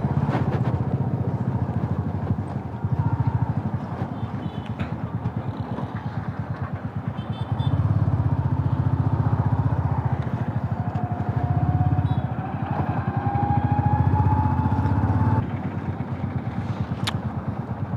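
Motorcycle engine running under way, a fast low throb that swells and eases with the throttle. A faint whine rises slowly for a few seconds past the middle.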